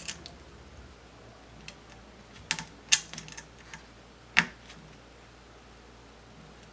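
A few light, scattered clicks and taps of plastic as the wireless antenna cable is handled and pressed into the routing channels of a laptop's plastic chassis, with the sharpest clicks about three seconds and four and a half seconds in.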